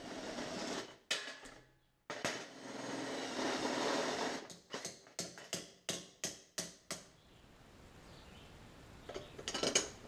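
Workshop tool noise: two stretches of rough noise, then a run of about nine sharp taps, roughly four a second, and a few more clicks near the end.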